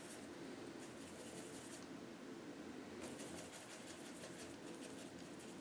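Faint, quick scratchy strokes of a small paintbrush laying acrylic paint onto canvas, in two runs with a short pause between, over a low room hum.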